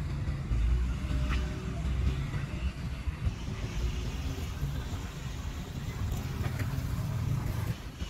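A Volvo wheeled excavator's diesel engine running, a steady low rumble.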